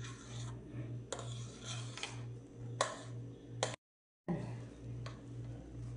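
A steady low hum that pulses about twice a second, with three sharp clicks in the first four seconds. The sound drops out completely for about half a second roughly two-thirds of the way through.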